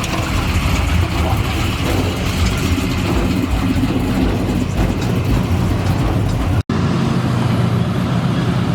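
Motor vehicle engine running steadily, with faint voices in the background; the sound drops out for an instant about two-thirds of the way through, then carries on.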